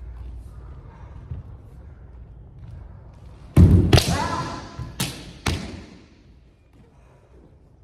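Kendo attack: a heavy foot stamp on the wooden floor and a sharp clack of bamboo shinai, cut through by a short shout (kiai). Two more sharp shinai clacks follow about half a second apart.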